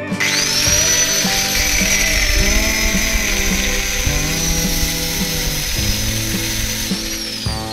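Electric power tool starting abruptly and spinning up to a steady high-pitched whine with a hiss over it, then winding down with a falling pitch near the end, over background music with a steady beat.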